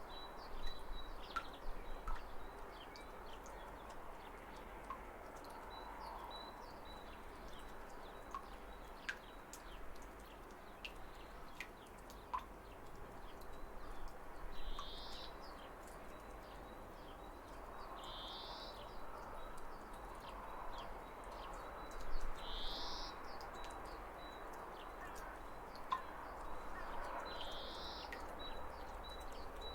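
Steady rush of falling water with birds chirping over it: a thin high note repeats in short pulses throughout, and four short, louder rising calls come a few seconds apart.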